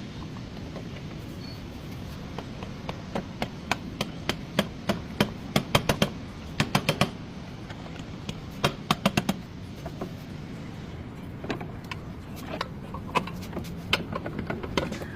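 Repeated hammer blows in several quick bursts, speeding up to a few strikes a second, over a steady low background hum.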